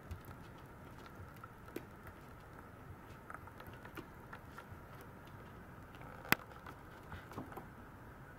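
Maltese puppy gnawing and pawing at a plastic pet toilet tray: faint scattered clicks and scrapes of teeth and claws on plastic, with one sharper click about six seconds in.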